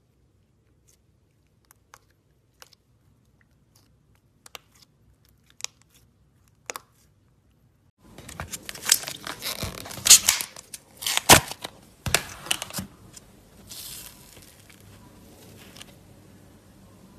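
Sticky slime giving off a few faint clicks and pops, then, about 8 s in, thick fluffy slime pulled and stretched out of a plastic tub with loud crackly tearing and crinkling and sharp snaps, loudest near the middle, easing to a soft rustle near the end.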